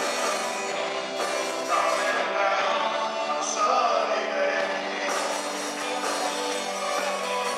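Live rock and roll band playing sixties-style pop, with electric guitar, drums and a sung vocal.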